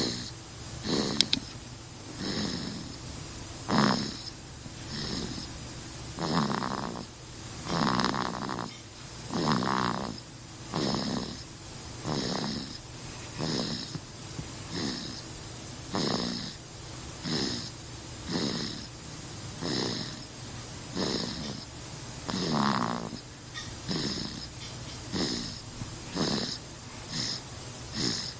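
A baby snoring in sleep, a short snore on nearly every breath, about one every second and a half. A few of the snores are longer and louder.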